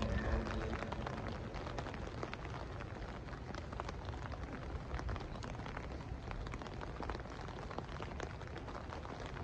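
Heavy rain falling on umbrellas and the ground: a steady hiss dotted with many small, sharp drop taps.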